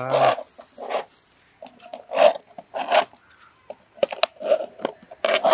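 Plastic popsicle cups, lids and sticks being handled: a series of short scraping and rubbing sounds, separate strokes about every half second to a second.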